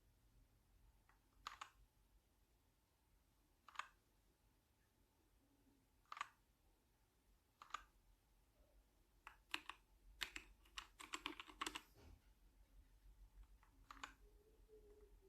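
Ziyou K3 mechanical keyboard with linear red switches being typed on: single key presses a couple of seconds apart, then a quick run of typing past the middle, and one last key press near the end.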